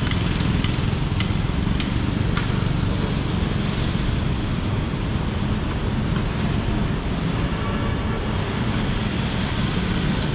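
Steady low rumble of city road traffic from a line of slow-moving cars, with a few light ticks in the first couple of seconds.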